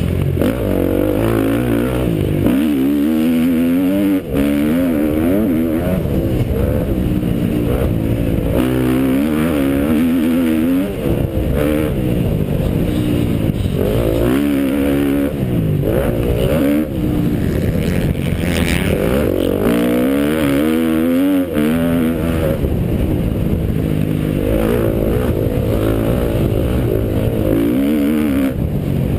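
Motocross dirt bike engine revving hard, its pitch climbing and dropping again every couple of seconds as the rider accelerates and shifts or backs off, picked up by a bike-mounted camera along with steady wind and track noise.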